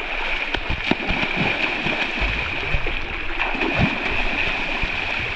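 Water gurgling and splashing under a steady high-pitched whine, with a few soft knocks.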